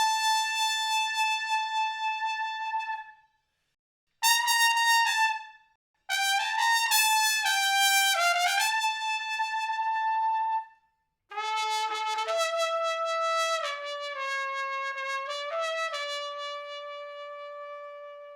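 Solo trumpet playing a slow melody unaccompanied, recorded dry with no reverb: four phrases broken by brief silent pauses, the last stepping down to a long held low note that fades away.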